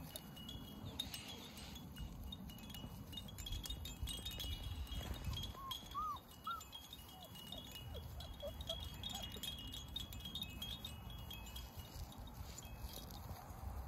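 Golden retriever puppies at play, giving a few short high squeaks and whimpers in the middle. Wind rumbles on the microphone, and a faint high chiming rings steadily.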